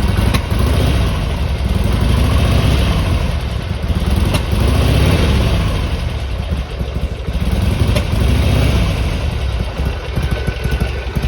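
Harley-Davidson Sportster XL883R's 883 cc V-twin idling during warm-up. Its speed swells and drops back about three times. The owner is troubled by the engine sneezing, spitting back through the intake, at this idle.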